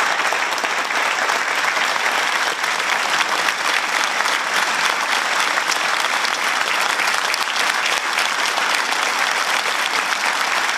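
Applause: many hands clapping in a dense, steady patter that stops abruptly at the end.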